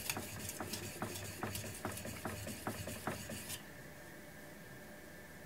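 Steel knife blade stroked back and forth on a wet natural slate sharpening stone cut from a roofing tile: an even scraping stroke a little over twice a second, stopping about three and a half seconds in.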